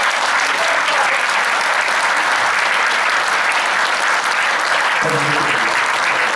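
Sustained round of applause from a concert audience and band members clapping, a dense, even clatter of many hands.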